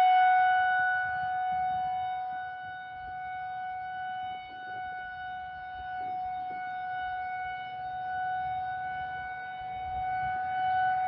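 Federal Signal 2001-130 outdoor warning siren sounding a steady single tone during a scheduled test. Its loudness fades and then swells back up near the end as the rotating siren head turns away and back toward the listener.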